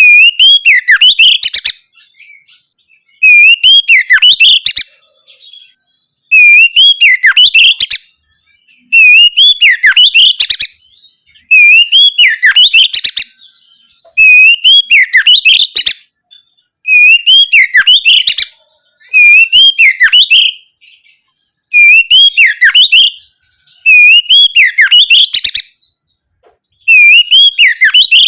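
Oriental magpie-robin (kacer) singing loud, full 'ngeplong' song: about ten near-identical phrases, one every two to three seconds. Each phrase is a rising-and-falling whistle followed by a quick run of very high notes. It is territorial song, used here as a lure to provoke a rival magpie-robin into answering.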